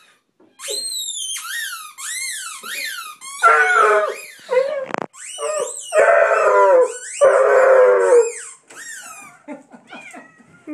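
Basset hound whining and howling at a closed door: a run of short, high cries that rise and fall, then several longer, louder howls. He is worked up over Chaz teasing him from the other side of the door.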